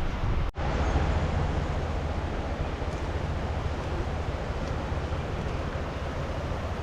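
Steady rushing outdoor noise with a heavy low rumble of wind on the microphone, broken by a brief dropout about half a second in.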